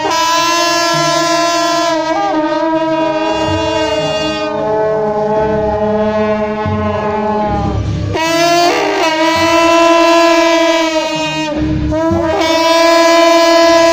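A group of shao jiao, the long Taiwanese procession horns, blowing loud sustained notes together on a few held pitches. Each phrase ends in a short break with sliding pitches, about eight seconds in and again near twelve seconds, before the horns sound again.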